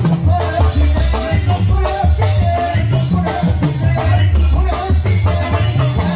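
A tamborazo band playing live: a saxophone melody over a steady beat from the tambora bass drum and drum kit, with keyboard and shaker-like percussion.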